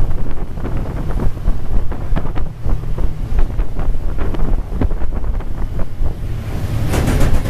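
Fishing trawler's engine and deck machinery running with a heavy low rumble, wind on the microphone, and scattered knocks and rattles of net gear. A louder rush of noise comes near the end.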